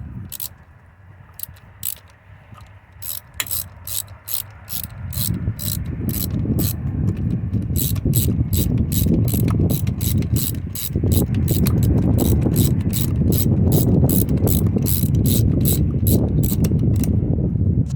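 Ratchet wrench clicking as a spark plug is tightened back into the engine, a few scattered clicks at first, then a steady run of about three clicks a second that stops shortly before the end. A low rumbling noise runs underneath and grows louder about a third of the way through.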